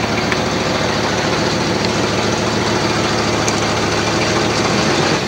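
An engine idling steadily, a loud continuous hum that cuts off abruptly at the end.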